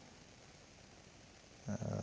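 Near silence: faint room tone, with a man's voice starting again near the end.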